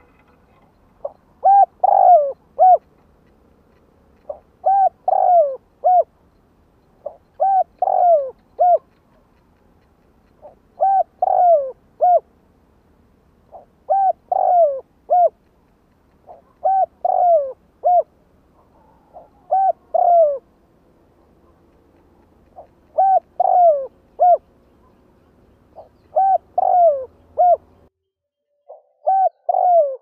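Spotted dove cooing: a repeated phrase of three or four coos, one phrase about every three seconds.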